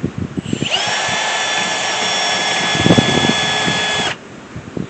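Power drill spinning up with a rising whine, running steadily for about three and a half seconds, then stopping abruptly.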